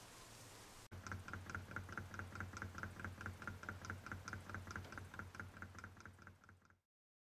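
Model Ringbom Stirling engine with a revolving cylinder running, ticking in a quick even rhythm of about five clicks a second over a low hum. It follows a second of faint hiss and cuts off suddenly near the end.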